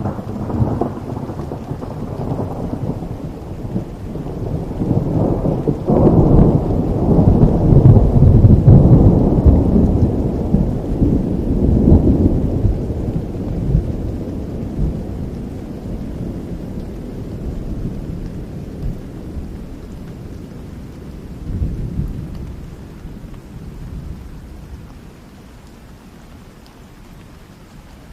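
Thunder over steady rain: a low rumble breaks in suddenly, swells to its loudest a few seconds later and rolls away over about twenty seconds, with a smaller second rumble near the end.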